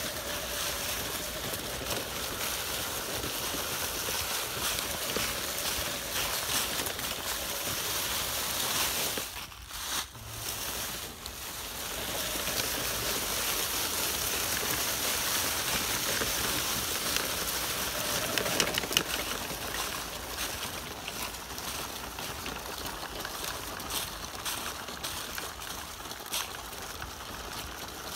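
Dry fallen leaves rustling and crunching as an RC crawler drives through them and the person following walks behind, a steady crackling hiss that drops away briefly about ten seconds in.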